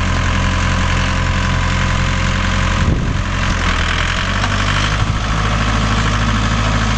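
Enfly DQ404 tractor's diesel engine idling steadily, with a brief knock about three seconds in and a slight change in the engine note about five seconds in.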